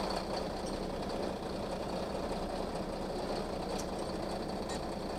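Flatbed tow truck's engine idling steadily.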